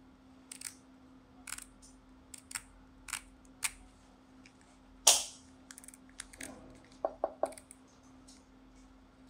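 Clicks and snaps from a small plastic mini camera being handled, as its rotating lens block is turned and its back clip flexed: a string of light clicks about every half second to a second, one sharp loud snap about five seconds in, and a quick burst of three or four ringing clicks near the end.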